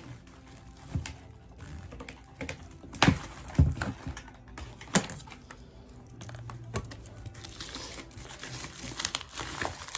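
Irregular clicks, taps and knocks from handling and unpacking a balance bike, with a few sharper strikes about three to five seconds in.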